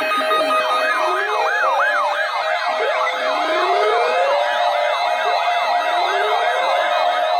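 Several electronic siren tones layered together. A fast yelp sweeps up and down about two to three times a second over a slower wail that rises again every couple of seconds, with steady held tones beneath.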